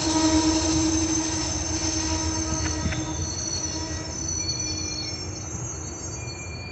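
Rear cars of an Amtrak Superliner passenger train rolling past, wheels squealing in several steady tones over the rumble. The sound slowly fades as the train moves off.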